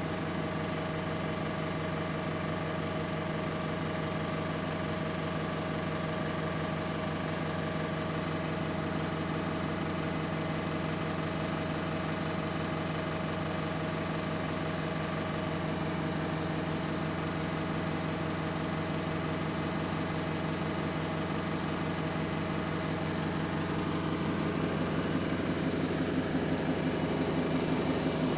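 Diesel engine of an Alexander Dennis Enviro400 MMC double-decker bus running steadily, with a constant whine over the engine note, the turbo whine this early MMC is known for. It gets louder and rougher about four seconds before the end.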